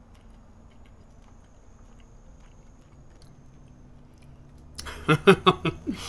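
A man chewing a mouthful of fish, faint against a quiet background. About five seconds in his voice comes in loud and muffled as he talks or hums with his mouth full.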